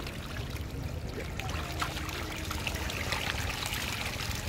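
Dense school of small fish thrashing at the water's surface: a continuous patter of many small splashes, busiest near the end.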